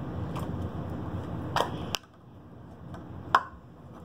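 A few light clicks and taps from small objects being handled, with one sharp, louder click about three seconds in. A steady low background noise stops abruptly about halfway through.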